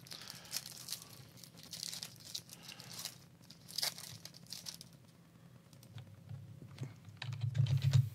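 Small handling noises: rustling, crinkling and scraping with light clicks, like cards and foil wrappers being handled, and a louder low bump near the end.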